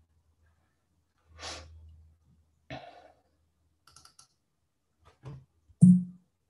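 Scattered computer mouse clicks and breaths picked up by a video-call microphone, with a short voiced sound near the end that is the loudest moment.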